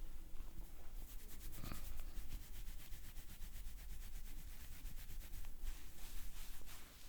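Hands rubbing briskly during a massage, a fast, even rhythm of short friction strokes.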